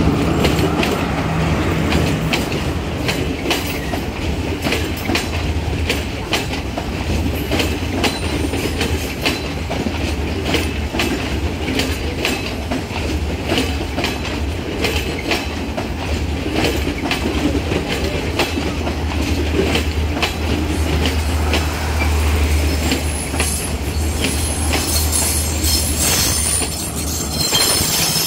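Class S14 diesel multiple unit passing at close range: wheels clicking over the rail joints in a steady run, over a constant low rumble. A high-pitched whine joins in near the end as the rear power car comes by.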